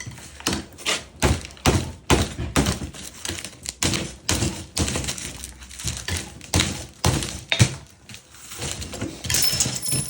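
Irregular run of sharp metal knocks and clicks, about two or three a second, as a flathead screwdriver is forced and pried against the parts of a compressor being taken apart. A brief metallic ring near the end.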